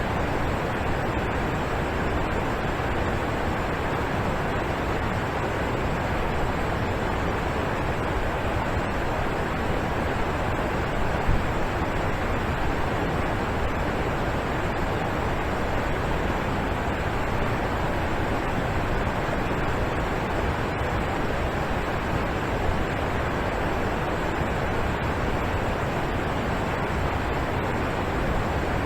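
Alpine waterfall rushing and splashing as a steady, even roar of falling water.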